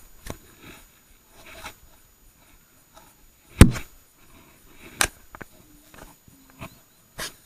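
Handling noise from a spinning rod and reel held close to the camera: a few sharp knocks, the loudest about three and a half seconds in, others about five seconds in and near the end, with faint rubbing and clicks between.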